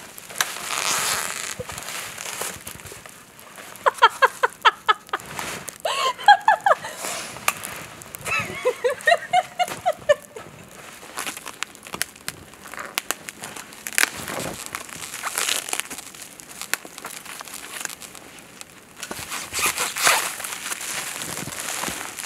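Plastic stretch wrap being pulled off its roll and wound around tree trunks, crinkling and rustling in bursts. A run of short squeaky sounds comes from about four to ten seconds in.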